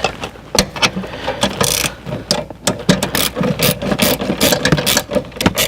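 Rapid, irregular mechanical clicking and rattling as seatbelt parts are handled and fitted back into place by hand.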